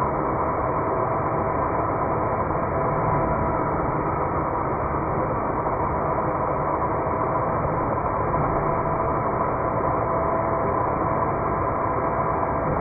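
Wen Portaband portable band saw cutting 1-inch pipe, its audio slowed down to a deep, steady drone with a few held tones.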